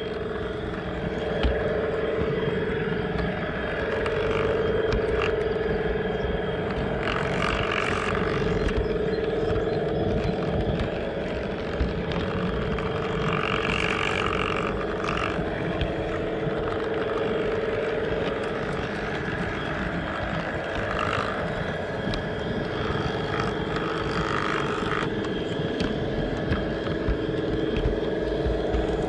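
LGB garden-railway model locomotive running, its electric motor and gearing giving a steady whine that drops a little in pitch about two-thirds through, with occasional clicks from the wheels on the track.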